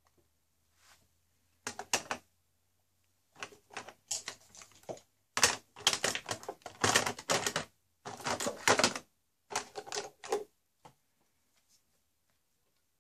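Handling noise: several bursts of rapid clicking and rattling of small hard objects, loudest in the middle and stopping a few seconds before the end.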